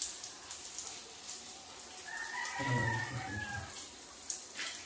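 Shower water running and splashing on a wet puppy in a tiled stall. About two seconds in, a drawn-out pitched call rises over it and lasts about a second and a half.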